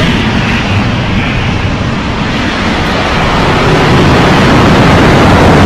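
Rocket Lab Electron's nine Rutherford first-stage engines firing at liftoff: a loud, steady rocket noise with a deep rumble, growing a little louder about four seconds in.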